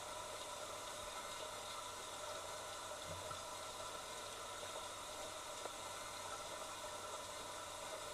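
Steady hiss with a low hum and a few faint steady tones, heard through a camera submerged in a pond; a brief soft low thud about three seconds in.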